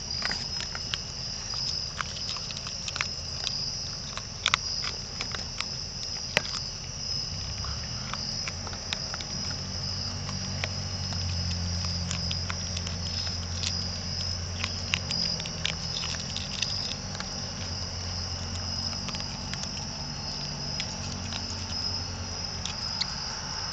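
Raccoons crunching dry food from a plastic scoop: irregular sharp crunches and clicks, over a steady chorus of crickets.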